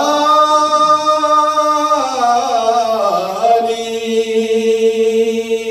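A man chanting loudly into a microphone: one long held note, then a wavering slide down to a lower note that he holds to the end.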